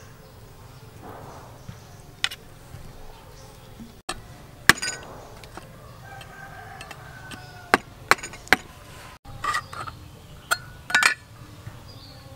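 A series of sharp metallic clicks and taps as the tip of a steel cleaver works at the lid of a tin can of peas, prying it open. Short gaps separate the strikes, with a quick cluster of clicks near the end.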